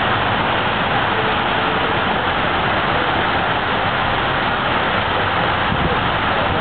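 Steady rushing of water running down a large wave-shaped water slide.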